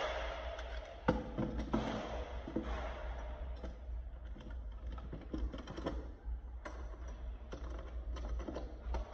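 Metal mortice lock case being handled and fitted into a freshly cut wooden mortice in a door edge: scattered light clicks, knocks and scraping of metal against wood.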